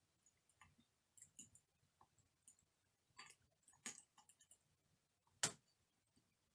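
Chopsticks clicking against a ceramic bowl and the Maltesers in it: a few faint, scattered clicks, the clearest one about four seconds in and the loudest about five and a half seconds in.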